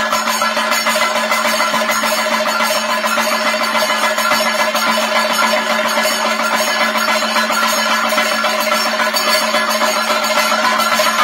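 Thayambaka ensemble: several chendas, Kerala cylindrical drums, struck rapidly with sticks in a dense, unbroken rhythm, with ilathalam hand cymbals clashing along with them.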